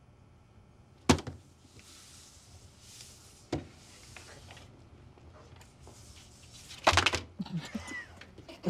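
Playing cards being handled on a wooden table in a quiet room: a sharp tap about a second in, a fainter one at three and a half seconds, and a louder cluster of clicks near seven seconds.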